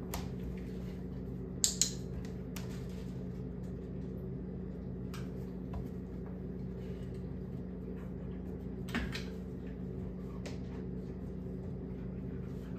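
Steady low mechanical hum, like a running kitchen appliance, with a few short sharp clicks and taps. The loudest is a quick pair about two seconds in.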